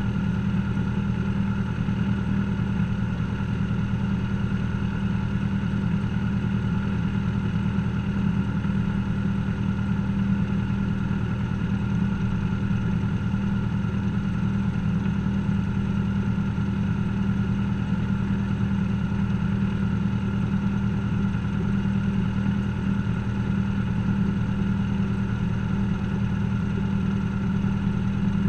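Cessna 172's piston engine and propeller idling steadily, heard from inside the cockpit, with an even low drone and no change in speed.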